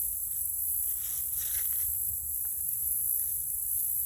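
Insects keeping up a steady high-pitched buzzing chorus in the grass and bushes, with a low rumble underneath and a few faint rustling ticks.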